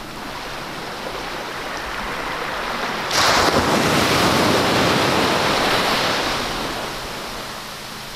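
Sea surf washing on a shore, mixed with wind. The rushing noise swells abruptly louder about three seconds in, then slowly dies away.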